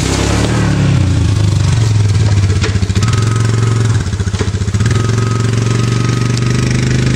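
An engine running steadily at idle, with a couple of faint clicks.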